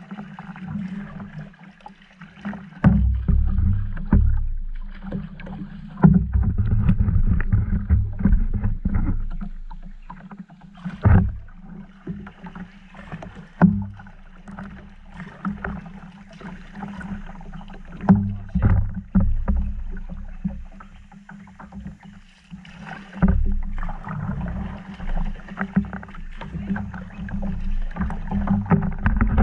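Kayak paddling: a double-bladed paddle dipping and splashing in calm water stroke after stroke, swelling and fading, with water washing along the plastic hull. A few sharp knocks are heard through it.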